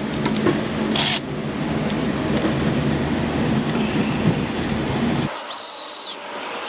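Cordless electric ratchet running steadily on an intake plenum bolt that is hard to turn because a piece of rubber is caught on it. Near the end it gives way to short bursts of hiss.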